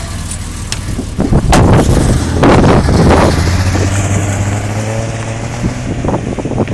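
A Jeep Cherokee engine running steadily as the vehicle drives away across a flooded, wet car park, the hum fading out near the end. From about a second in there are loud bursts of rushing noise from tyre spray and wind on the microphone.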